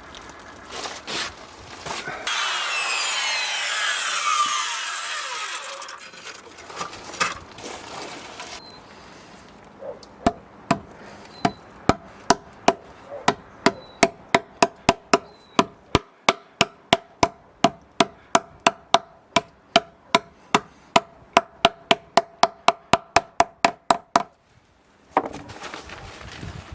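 A saw cutting through timber for about four seconds. Then a long run of steady hammer blows, about three a second, each with a short ring: nails being driven into the timber frame.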